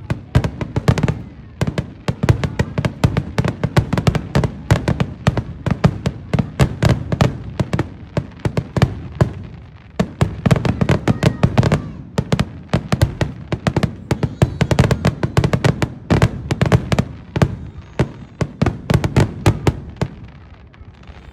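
Fireworks going off in a rapid, continuous crackle of sharp bangs, several a second, easing off near the end.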